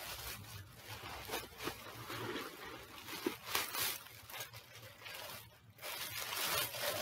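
Tissue paper rustling and crinkling as it is pulled apart and unwrapped, in uneven crackles that ease off briefly about five and a half seconds in.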